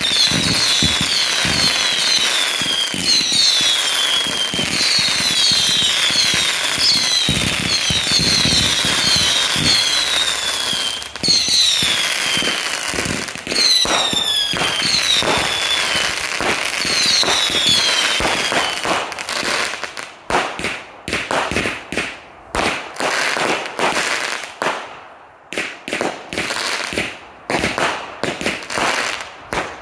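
Final Frontier 500-shot firework cake firing a rapid stream of shots. For the first two-thirds it makes a dense crackling rattle of launches and bursts, with repeated high whistles that fall in pitch. After that the whistles stop and the shots come as separate sharp cracks with short gaps between them.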